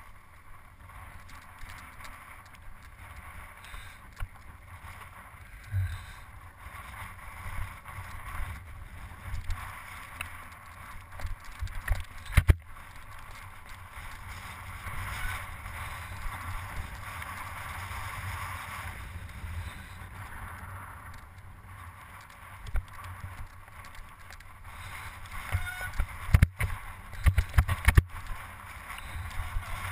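Mountain bike ridden over a rough, rocky mountain path: a low wind rumble on the camera microphone, with knocks and rattles as the bike jolts over stones. There is a sharp knock about halfway through and a cluster of hard knocks near the end.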